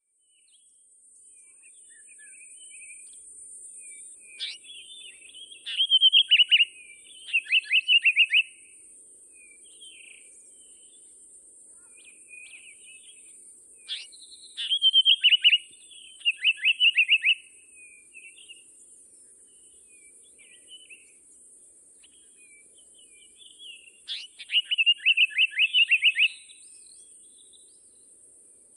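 Recorded songbird singing: three song phrases about ten seconds apart, each a quick run of sharp notes falling in pitch, with softer calls between them and a steady high hiss underneath.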